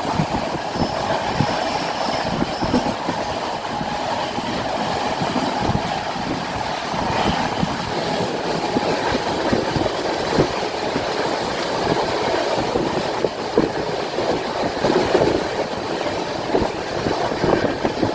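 Train running along the track, its wheels clattering over the rail joints with a steady rumble.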